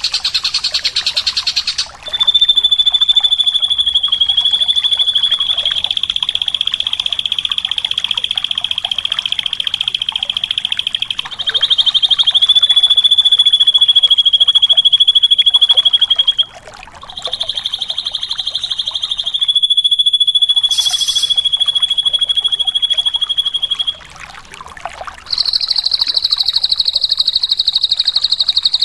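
Drongo (srigunting) song: long, rapid buzzing trills held at one high pitch, each lasting several seconds, broken by short pauses. A brief, higher note cuts in about twenty seconds in.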